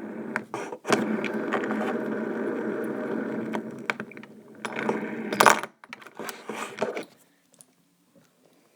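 A fidget spinner spinning and rattling steadily against a hard surface for a few seconds as it winds down, followed by a loud metallic clatter about five seconds in and a few smaller knocks.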